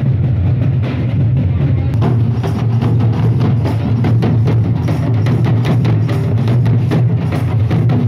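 Folk barrel drums beating a fast, dense rhythm over a steady low hum.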